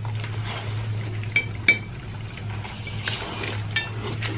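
Close-up mouth sounds of biting into and chewing sauce-coated fried chicken: wet crunching with small crackles and a few sharp clicks, the loudest about a second and a half in and again near the end, over a steady low hum.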